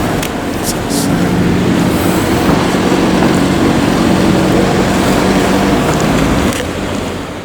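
A loud, steady vehicle rumble with a low droning hum, easing off a little near the end.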